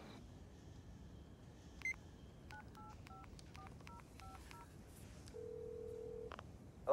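A landline telephone being dialed: a short beep, then about ten touch-tone (DTMF) key tones in quick succession. A steady tone about a second long follows on the line, then a click.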